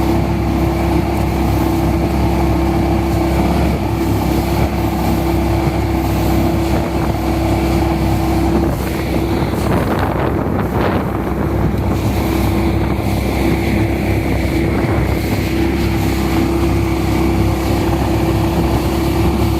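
Mud-boat surface-drive motor with a fuel-injected 37 hp Vanguard V-twin engine running at a steady, unchanging speed, with wind noise on the microphone and a short wash of noise about halfway through.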